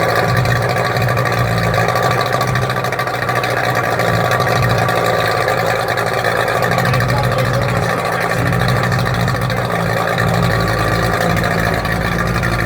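Yamaha 50 hp outboard motor running at a steady speed, its exhaust note holding even without revving.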